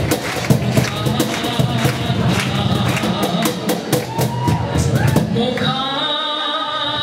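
Cajón played by hand in a quick rhythm, with a woman singing into a microphone over it. About five seconds in, the drumming drops back and she holds long sung notes.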